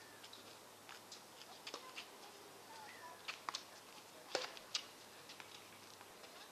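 Tennis racket hitting a ball: a sharp knock about four and a half seconds in, followed closely by a second knock, among scattered lighter ticks and knocks. A few short, high gliding calls from an animal are heard in the background.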